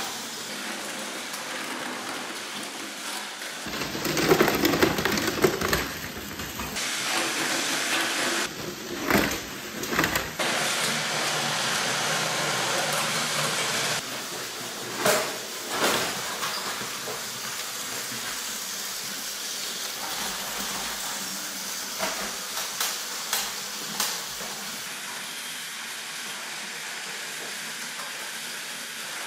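Battery-powered Plarail toy trains running on plastic track: a steady whirring hiss of small motors and wheels, changing as the shot changes, with occasional sharp clicks.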